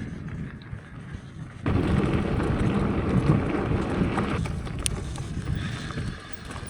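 Wind buffeting the microphone: a loud gust comes in suddenly under two seconds in and eases off after about three seconds.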